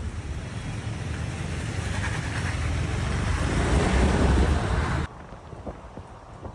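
GMC Sierra 2500HD's Duramax turbo-diesel V8 rumbling as the truck drives closely past, growing louder to a peak about four seconds in. About five seconds in the sound cuts off abruptly to much quieter road noise.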